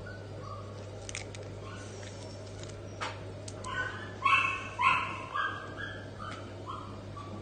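Beagle puppy yipping: a few faint yips early, then a quick run of about six short, high-pitched yips in the second half.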